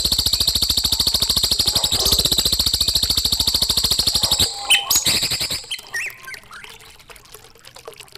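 Recorded bird song of the kind used as a master track for young cage birds: a fast, even rattling trill for about four and a half seconds, then a few short chirps, after which only quieter scattered notes remain.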